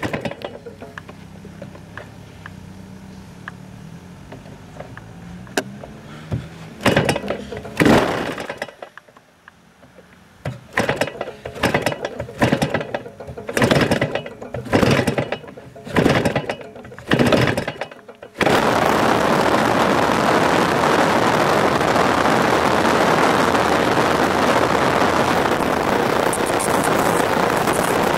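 Two-stroke Husqvarna chainsaw engine, converted to power a giant-scale radio-control airplane, being started. It gives a string of short loud bursts as it is turned over, catches about eighteen seconds in, and then runs steadily and loud.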